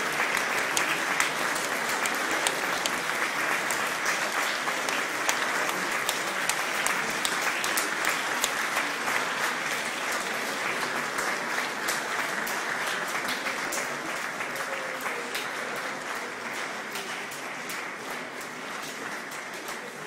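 Audience applauding, a dense patter of clapping that slowly dies down over the last several seconds.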